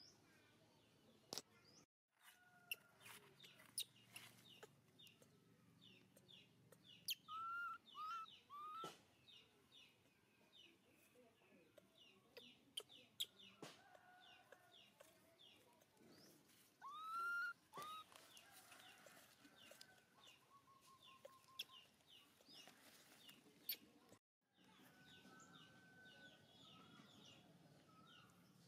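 Birds chirping steadily in the background. A few louder short rising-and-falling calls stand out: three in quick succession about a quarter of the way in, and two more a little past the middle.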